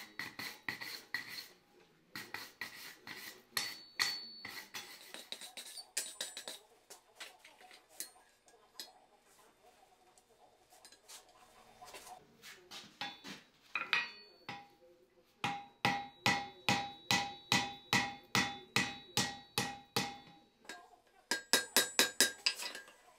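Blacksmith's hand hammer striking hot steel on an anvil, each blow ringing. After a spell of lighter, scattered knocks, the hammering settles into a steady run of about two to three blows a second, then a quicker flurry near the end.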